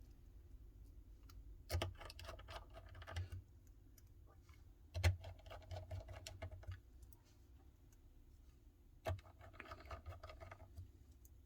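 Faint small-tool clicking on a phone's frame: a precision screwdriver turning tiny screws in three short bouts. Each bout starts with a sharp tap and runs on as about a second and a half of fine rapid ticking.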